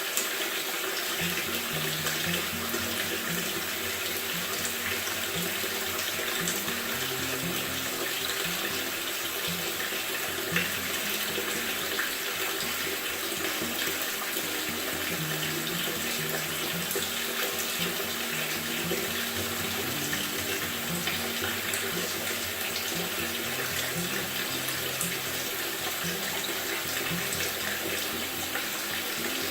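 Water running steadily into a Maytag top-load washer's tub as it fills: an even rushing hiss. Low stepped notes of background music come in about a second in.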